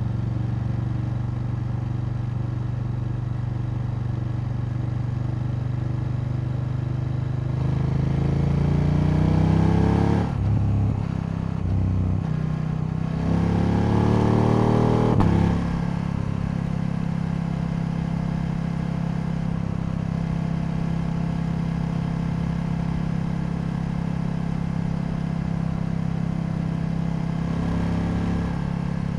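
KTM 890 Duke L's parallel-twin engine idling, revved up twice in rising sweeps about a third of the way in and again around the middle, then settling back to a steady idle.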